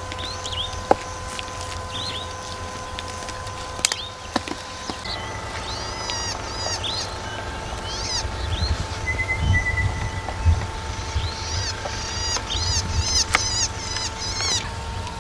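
Small birds calling in the bush: many short, high, down-slurred chirps, coming in quick runs in the second half. A low steady rumble sits underneath.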